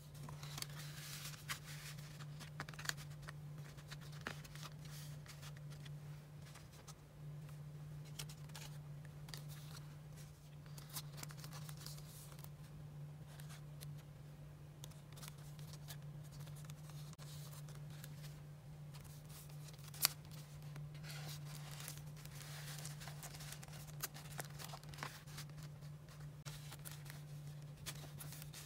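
Paper and card pages of a handmade file case being handled and turned: soft rustling with scattered light clicks and taps, the loudest a sharp tap about two-thirds of the way through. A steady low hum runs underneath.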